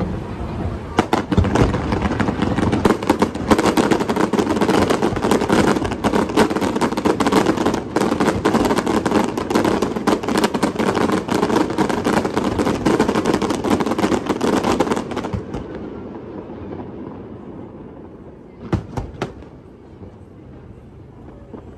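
Fireworks going off in a rapid, dense barrage of bursts and crackles for about fifteen seconds. The barrage then dies away, and a few separate bangs follow near the end.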